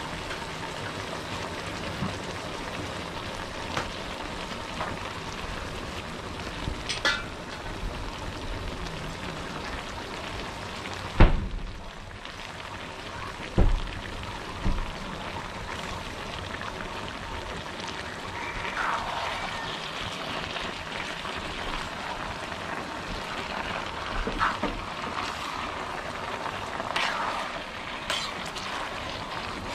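Stir-fry of meat, cabbage and noodles sizzling steadily in a wok over a gas burner. A few sharp knocks come in the middle, the loudest about eleven seconds in, with more clatter near the end as the food is stirred.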